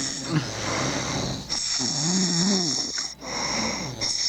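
Men snoring in their sleep: a rasping breath rolls into a long, wavering snore, then after a short pause another breath leads into the next snore near the end.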